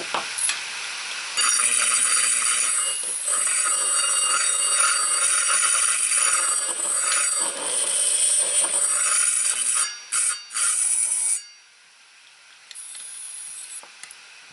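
Screwdriver tip scraping across the spinning platter of an opened hard drive: a loud, steady screech with several high ringing tones as the platter's magnetic coating is scraped away. It cuts out about eleven seconds in, leaving only a much quieter sound.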